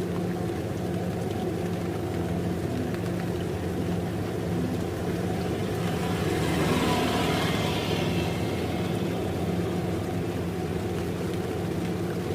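Kubota DC 70 combine harvester's diesel engine running steadily under harvesting load. It swells louder and harsher for a couple of seconds around the middle.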